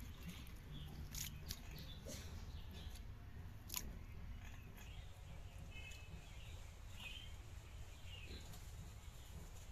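Faint clicks and wet scraping of fingers cleaning small fish on a wet cement slab, the sharpest click a little under four seconds in. A few faint bird chirps come partway through.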